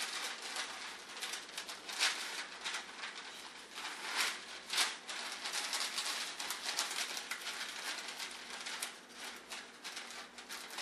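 A sheet of parchment paper crinkling and rustling as it is folded into quarters by hand, a string of irregular crackles.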